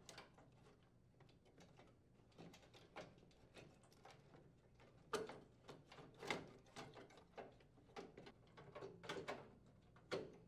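Faint scattered clicks and knocks of a plastic door switch holder being fitted into a microwave oven's metal frame, its tabs pushed into the slots and pressed down, a few louder clicks about halfway through.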